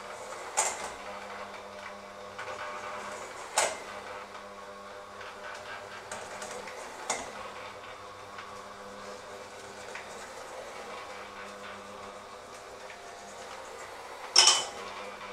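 Electric hand mixer running with a steady motor hum as its beaters work through a mixture in a stainless steel bowl. The beaters knock sharply against the metal bowl four times, loudest near the end.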